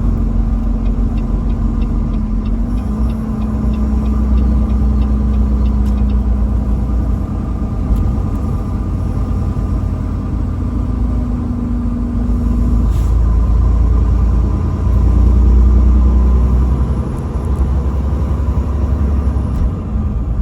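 Road vehicle running: a steady low rumble with a steady hum, a run of quick light ticks in the first few seconds, and a louder swell about fifteen seconds in.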